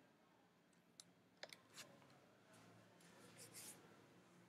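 Near silence: room tone with a handful of faint, short computer mouse clicks, a few about a second in and a few more between three and four seconds.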